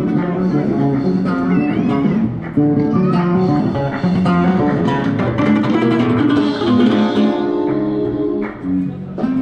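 Guitar music, plucked strings over a bass line, playing steadily.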